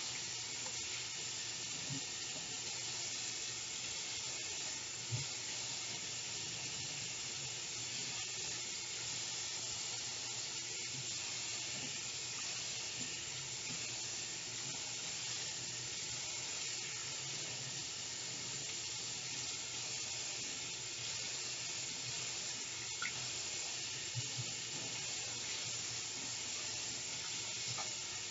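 Kitchen or bathroom tap running steadily into a sink while a bundle of human-hair weave is rinsed under the stream, with a few faint small knocks.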